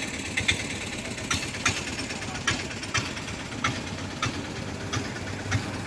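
Fire engine's diesel engine running steadily at idle while it sprays foam from its front nozzle, with irregular sharp clicks over the rumble.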